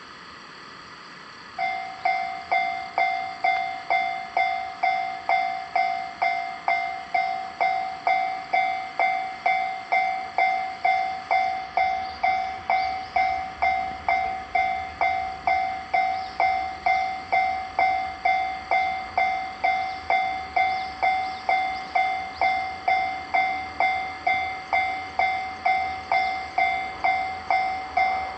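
Japanese level-crossing warning bell that starts about a second and a half in and rings steadily at about two strikes a second. A faint low rumble joins from about midway.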